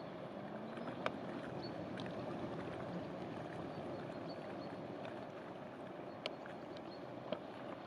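Steady rushing wash of water from a passing inland cargo barge, with three short sharp clicks, about a second in, about six seconds in and near the end.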